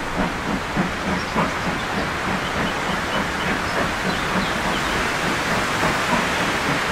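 Exhaust of the two-cylinder 2-10-0 steam locomotive 50 3648 working hard under a heavy plume of smoke, chuffing in an even beat of about two a second over a steady hiss of steam.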